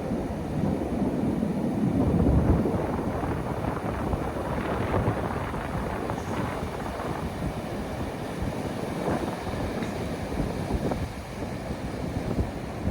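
Sea waves washing onto the beach: a continuous rushing surge that swells loudest about two seconds in, then rises and falls again, with wind rumbling on the microphone.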